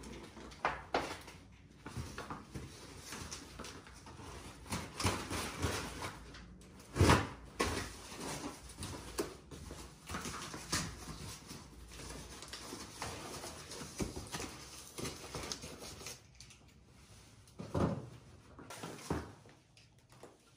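A large cardboard shipping carton being handled and cut open: scraping, rustling and creaking of cardboard. Two louder knocks come through, one about a third of the way in and one near the end.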